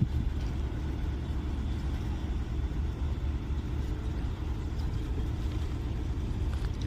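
A diesel engine of heavy construction machinery running steadily, a low even rumble.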